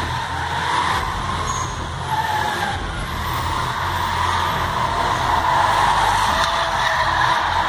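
Several stunt cars' engines revving as the cars drift and spin, with wavering tyre squeal.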